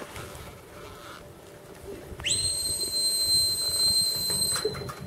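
About two seconds in, a sheepdog handler gives a whistle command to a working border collie: a quick upward swoop into one steady high note lasting about two seconds, then cut off.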